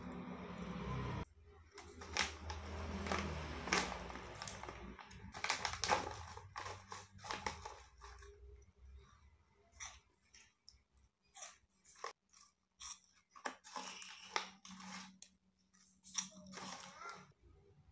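Close-up crunching and chewing of crispy veggie puff snacks. The bites are dense in the first half and thin out to scattered crunches later, with a snack bag crinkling as a hand reaches in.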